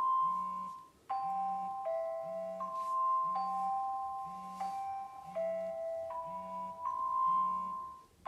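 Smartphone alarm tone: a marimba-like melody of ringing notes, with the phone's vibration motor buzzing in short pulses a little more than once a second underneath. The tune pauses briefly about a second in and stops near the end.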